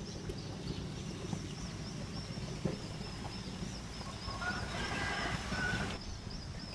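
Countryside ambience: a high, thin chirping call repeating about three times a second, a few short, lower calls joining about four seconds in, over a steady low rumble.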